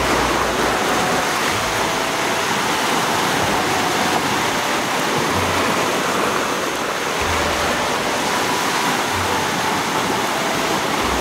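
Ocean surf washing steadily over rocks on the shore, a constant rush of breaking waves.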